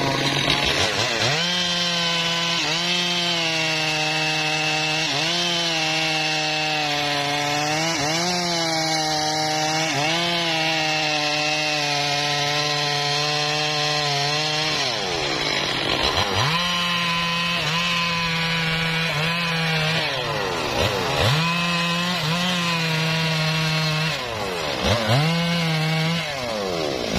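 Stihl two-stroke chainsaw at full throttle cutting through mahogany branches, its engine pitch dipping briefly every couple of seconds as the chain bites into the wood. About halfway through the revs fall away, then it is throttled up again for a run of shorter cuts with quicker dips in pitch near the end.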